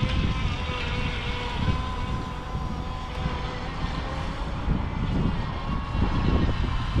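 Alpharev R308 RC speedboat's electric motor running with a steady whine as the boat is driven on the water, over a low rumbling noise.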